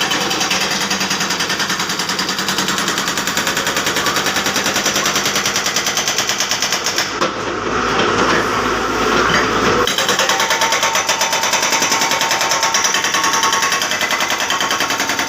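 Komatsu excavator's hydraulic breaker hammering, a rapid, steady stream of blows with a short change in the rhythm about halfway through.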